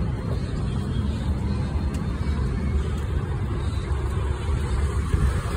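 Street traffic noise on a city road: a steady low rumble with no single vehicle standing out.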